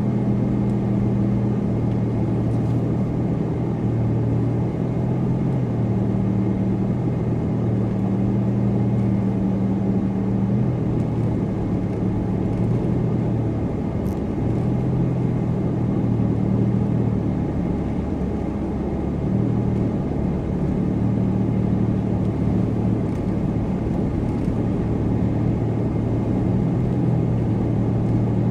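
Supercharged car driving at a steady pace: the engine runs with a low, even note over tyre and road rumble, and its pitch shifts slightly a few times.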